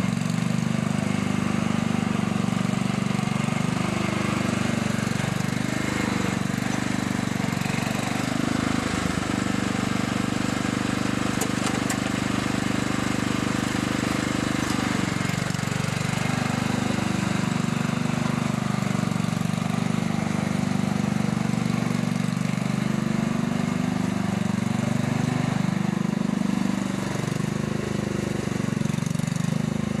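Lawnmower engine running continuously while pulling a plough through garden soil. Its pitch sags and recovers several times in the second half as the engine labours under the plough's changing load.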